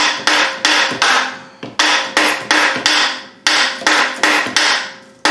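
Rapid hammer blows on a steel pry bar, about three a second in three runs with short pauses, each strike ringing briefly. The bar is being driven to break the engine free of the transmission where a corroded dowel pin is holding the joint.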